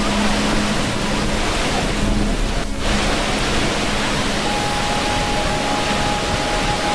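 Steady rushing water noise, dense and even, with a few faint held tones underneath and a brief dip about three seconds in.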